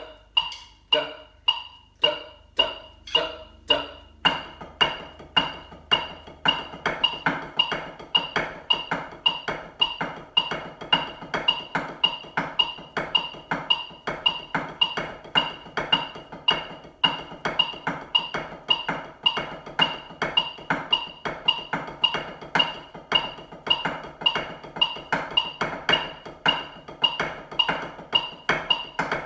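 Drumsticks playing a snare drumline exercise to a metronome clicking about two beats a second. The strokes are spaced out at first, then turn into dense, continuous sticking from about four seconds in.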